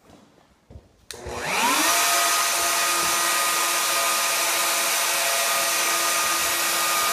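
A corded power tool's electric motor switched on with a click about a second in, spinning up over about a second and then running at a steady high whine.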